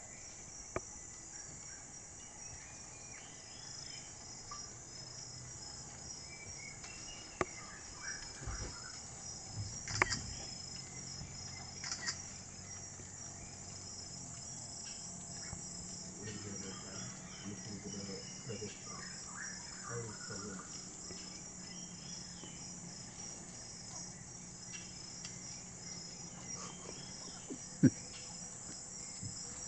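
Steady, high-pitched chorus of rainforest insects, unbroken throughout. A few sharp clicks or snaps stand out over it, the loudest near the end.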